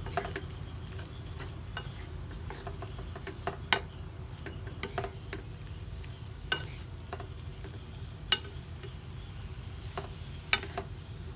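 Bitter melon with meat and egg frying in a pan: a steady sizzle, with a few sharp clicks of a utensil against the pan as it is stirred.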